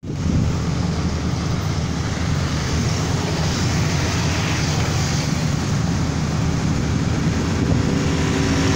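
Rice combine harvester running steadily as it harvests a standing paddy crop: a continuous low engine drone with a rushing noise over it.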